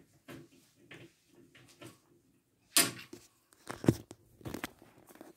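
Handling noise from the phone being picked up and moved: scattered knocks and rustles, the loudest a sharp knock about three seconds in, followed by a cluster of bumps.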